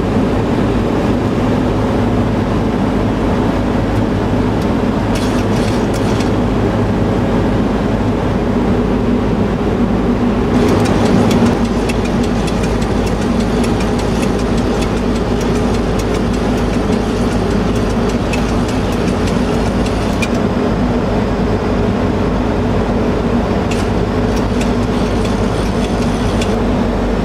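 Steady flight-deck noise of a Boeing 737 on approach: rushing airflow and engine noise with a constant low hum, and patches of faint crackling now and then.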